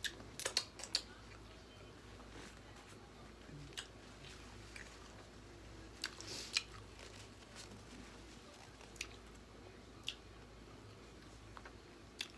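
Close-up mouth sounds of eating: scattered wet smacks and clicks from licking sauce off fingers and chewing. They bunch near the start and again about six seconds in, with a few single smacks later.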